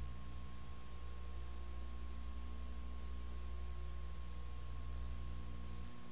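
Steady electrical hum with hiss and a faint high steady tone, and no other sound; the deepest part of the hum drops away near the end.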